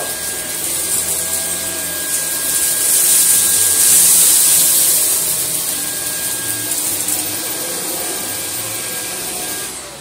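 Dyson V11 cordless stick vacuum running while its brush head is pushed over rice-strewn deep-pile carpet: a steady high whine and rush of air, loudest in the middle. It cuts off suddenly just before the end.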